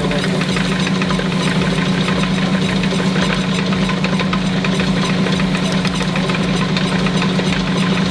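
Power sander running steadily while wet sanding a wheel rim, a constant hum with a fast even pulsing.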